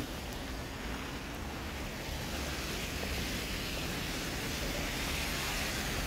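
Steady rushing noise of street traffic and wind during a snowfall, with a car's tyres swishing through wet slush, a little louder toward the end.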